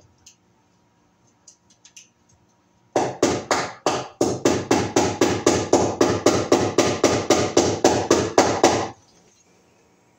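Hammer driving a nail into a wooden board overhead: a fast, even run of sharp strikes, about four a second for some six seconds, after a few light taps.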